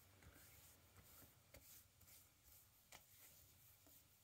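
Near silence, with faint rubbing of hands over the skin of the neck and chest and a few faint soft ticks.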